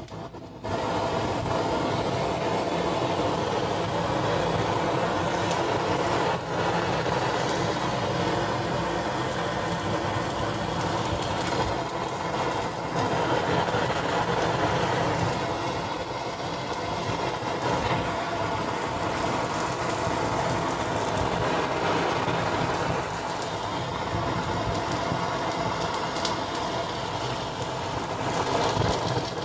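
Handheld butane blowtorch burning with a steady hiss as its flame sears the scaled skin of fish fillets for skin-seared sashimi; the hiss comes up to full level just under a second in.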